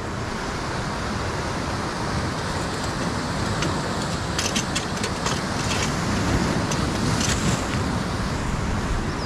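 Steady rushing noise of surf and wind at the shoreline, with a few faint clicks scattered through the middle.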